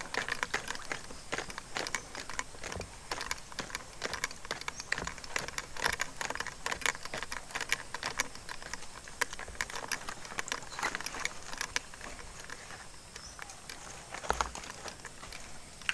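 Rapid, irregular crackling and clicking of twigs and leaves being brushed close to the microphone, thinning out after about twelve seconds, with one low thump near the end.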